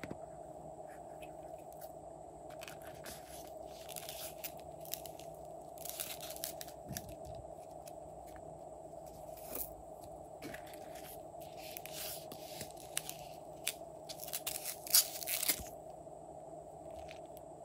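Plastic packaging and cases handled and crinkled, in several crackly bursts, the loudest about fifteen seconds in, over a steady low hum.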